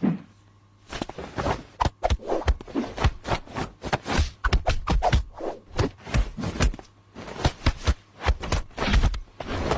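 A rapid, irregular run of slaps, taps and scuffs, several a second, as a hand spars with a cat.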